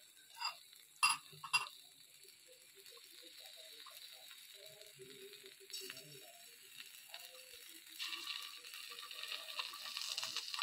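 Marinated chicken sizzling faintly on a wire rack over an iron tawa on low heat, the sizzle growing louder over the last few seconds. A few light clicks come in the first two seconds.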